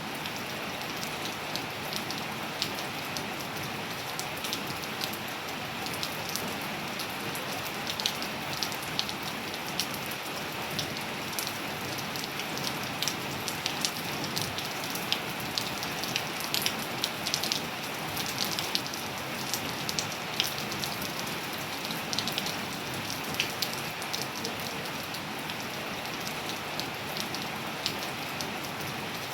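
Steady rain falling on surfaces, an even hiss with many sharp, close drop impacts ticking over it.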